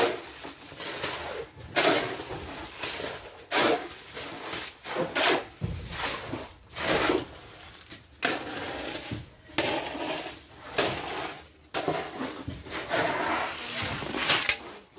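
Steel shovels scraping and turning a wet concrete mix of gravel, cement and water on bare ground, a gritty scrape-and-slosh stroke about once a second.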